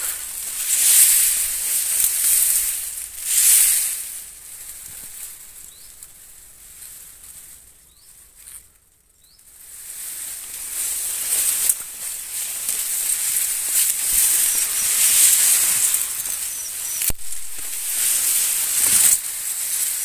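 Rustling hiss from leaves and grass brushing close to the phone's microphone, rising and falling in swells and dropping away about eight to nine seconds in. A few faint high chirps sound briefly.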